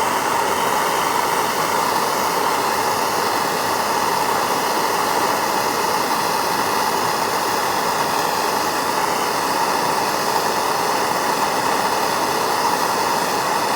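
Gas torch flame hissing steadily as it heats a stainless steel tube joint for silver soldering.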